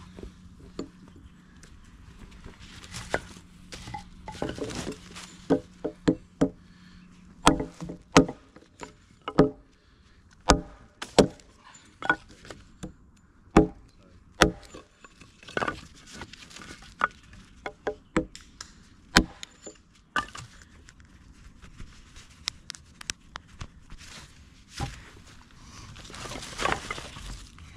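Hatchet chopping and splitting short lengths of firewood on a log base: a long run of sharp, irregular strikes of steel into wood, thickest through the middle of the stretch, then a softer clatter and rustle as the split pieces are picked up near the end.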